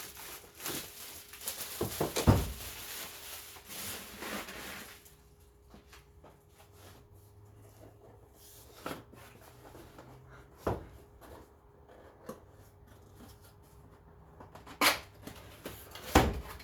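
Tools and their packaging being handled: about five seconds of rustling with a sharp knock about two seconds in, then scattered single clicks and knocks, with two louder ones near the end.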